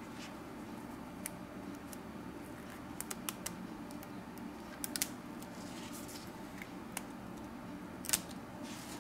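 Faint scattered clicks and creaks as an Essential Phone PH-1's battery is pried up and its stretch-release adhesive strips are pulled out from under it, over a steady low hum. The loudest click comes about eight seconds in.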